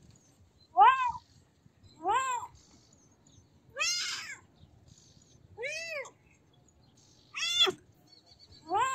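Kitten meowing repeatedly: six short meows, about one every second and a half, each rising then falling in pitch.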